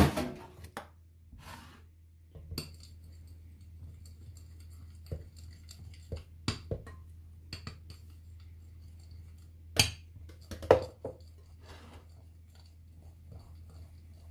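Scattered clinks and knocks against a glass mixing bowl as flour is tipped in from a plastic measuring jug and worked into the batter by hand, with two louder knocks about ten seconds in. A steady low hum runs underneath.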